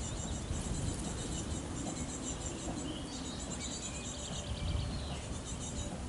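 Small songbirds singing and calling in the surrounding bushes: rapid, high-pitched repeated chirps in short groups, with a lower trill near the middle, over a steady low rumble.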